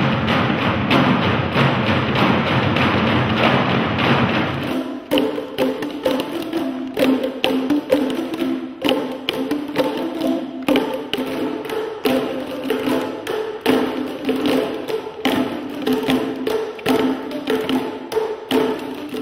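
A group playing hand drums together for about five seconds, then a sudden change to a group striking tuned plastic Boomwhacker tubes: many quick hollow taps on a few pitched notes in an overlapping rhythm.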